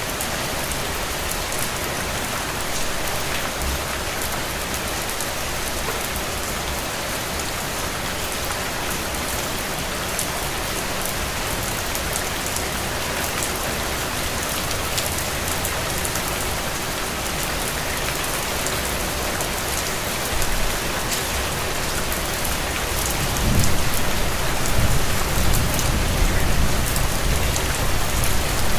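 Steady rain falling on a window, a dense even patter with fine drop ticks. About three-quarters of the way through a low rumble rises underneath and the sound grows louder.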